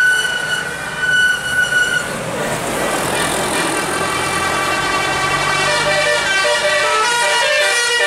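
Tour bus horns: a single horn note held for about two seconds, then bus engine and traffic noise, then from about five seconds in a multi-tone 'telolet' horn playing a quick tune of short notes stepping up and down.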